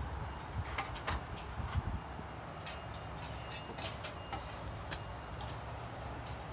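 Clay roof tiles clicking and knocking against each other as they are handled and stacked, a dozen or so sharp clinks at irregular intervals over a steady low rumble.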